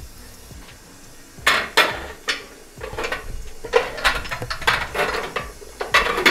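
Kitchenware clattering: metal utensils, pots and dishes knock and clink against each other. The first second is quiet, then sharp clinks start, with a busy run of them through the second half.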